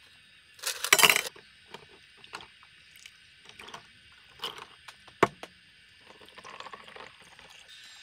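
Ice cubes clatter loudly into a stainless steel camping cup about a second in, followed by scattered clinks of ice against metal. Near the end, coffee from a moka pot trickles over the ice.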